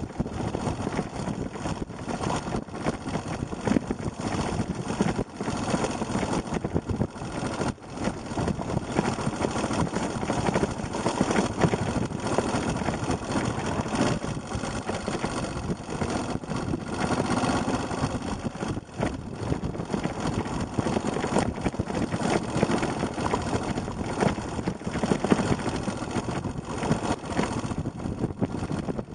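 Yamaha XT250 single-cylinder four-stroke engine running at low speed, with frequent knocks and jolts from the bike rolling over a rough gravel track.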